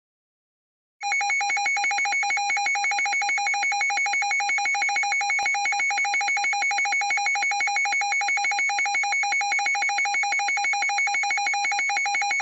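Electronic emergency alert attention tone: a loud, rapidly pulsing alarm sounding two pitches at once, one low and one high. It starts abruptly about a second in and cuts off sharply at the end.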